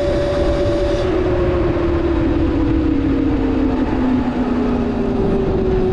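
Electric scooter's motor whine, its pitch slowly falling as the scooter slows, over heavy wind and road noise.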